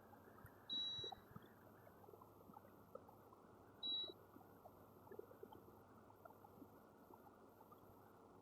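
Two short, high electronic beeps from a multimeter in continuity mode, about three seconds apart, as its probes are touched across capacitors on a phone board to test for a short to ground; faint probe clicks in between.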